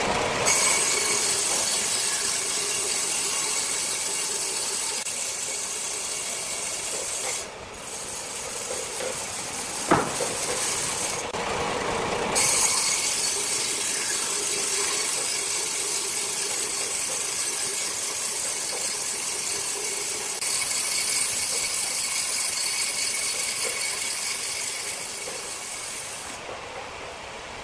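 Large circular saw cutting rosewood: a steady hissing cut that breaks off briefly twice and ends near the close, with one sharp knock about ten seconds in.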